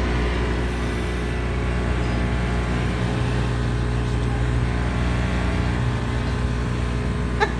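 A steady motor hum with a low drone and a whirring hiss over it, unchanging in level.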